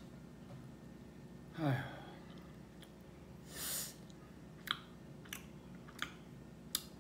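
A man's wordless vocal groan falling steeply in pitch, then a breathy exhale, then four short sharp clicks a little over half a second apart while he eats.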